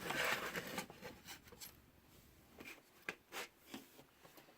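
Faint rustling followed by scattered light clicks and taps of small parts being handled on a work surface.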